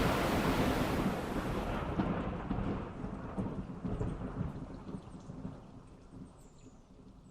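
Heavy rain with a rumble of thunder, fading steadily away over several seconds until only faint scattered drops are left near the end.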